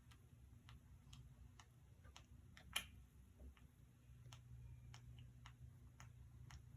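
Faint regular ticking, a little under two ticks a second, with one louder click about three seconds in, over a low steady hum.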